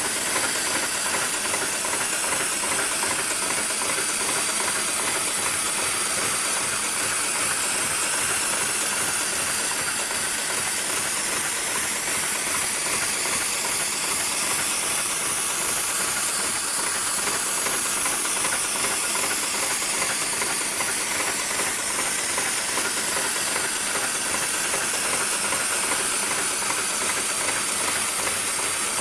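Heavy-duty programmable industrial sewing machine running steadily: a continuous hissing machine noise with no breaks or changes.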